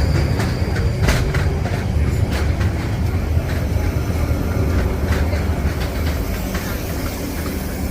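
Train running through the station: a steady low rumble of wheels on track, with occasional clicks as the wheels pass over rail joints.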